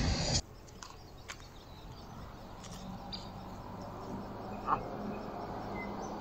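Quiet outdoor ambience after a louder sound is cut off sharply about half a second in: a faint low steady hum with a few soft clicks and a short bird chirp near the end.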